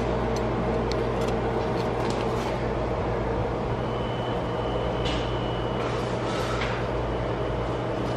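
A motor running steadily: a constant machine hum with a noise bed, with a few light clicks in the first couple of seconds.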